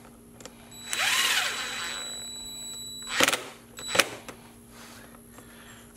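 Cordless drill/driver running for about a second as it tightens the clamp screw on the engine's rubber air-intake hose, then winding down. Two sharp clicks follow.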